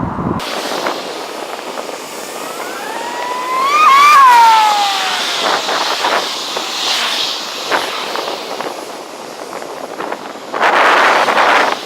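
Jet airliner passing, its engine whine rising in pitch and then dropping away about four to five seconds in, the loudest moment. A loud rush of noise follows near the end.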